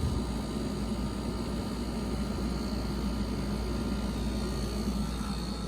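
Black+Decker portable heat pump running in heat mode: a steady hum and rush of air from its compressor and fan, with a faint steady whine above it. The compressor is really loud, which the owner suspects might be normal.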